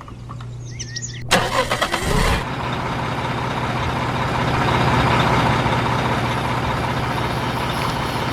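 A vehicle engine starts with a sudden rattling burst about a second in, then runs steadily.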